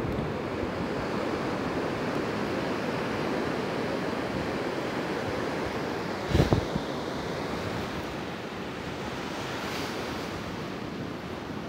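Sea surf washing onto a sandy beach, a steady rush of breaking waves with some wind on the microphone. About halfway through comes one short bump on the microphone.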